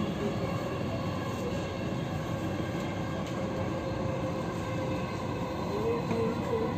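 Dubai Metro train running steadily, heard from inside the carriage: an even rumble with constant high tones over it.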